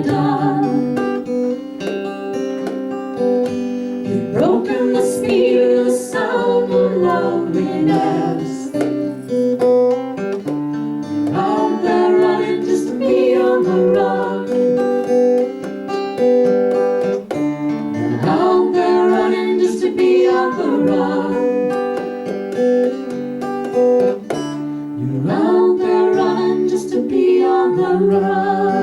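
Music: an instrumental passage of a country-folk song, led by strummed and plucked acoustic guitar.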